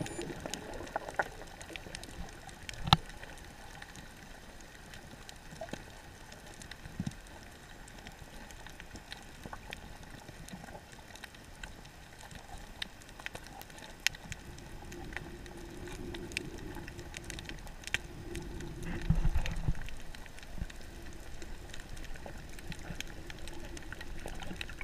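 Underwater ambience on a shallow coral reef, heard through an action camera's waterproof housing: a dull, even hiss with scattered sharp clicks and crackles. A low rumble swells about nineteen seconds in.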